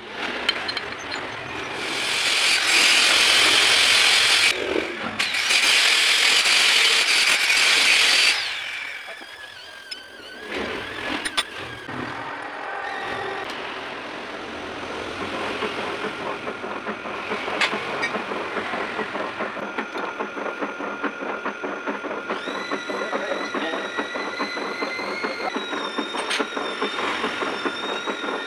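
A loud rough noise for about six seconds, then a few knocks, then a large engine lathe running, its four-jaw chuck spinning with a steady mechanical clatter. About three-quarters of the way through a gear whine comes in and steps up slightly in pitch.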